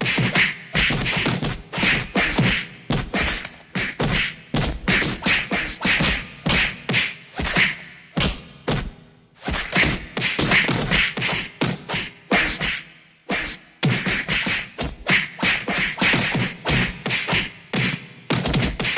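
Fight sound effects: a rapid string of punch and body-hit whacks, several a second, with two short breaks, about nine and thirteen and a half seconds in.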